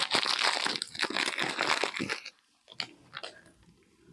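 Steel spoon stirring and scraping through coarsely ground spice blend in a bowl: a dense, gritty scratching that stops abruptly a little over two seconds in. A few faint clicks follow.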